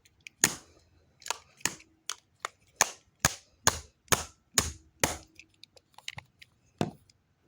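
A remote control being struck again and again with a pencil: a run of sharp knocks, roughly two or three a second, about eleven in all, then a pause and one last knock near the end.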